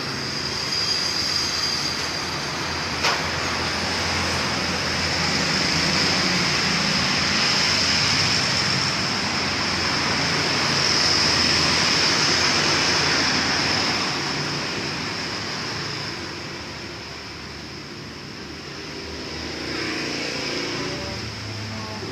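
Steady rushing, bubbling water noise of a home aquarium's filter and aeration, dipping for a few seconds late on, with a single sharp click about three seconds in.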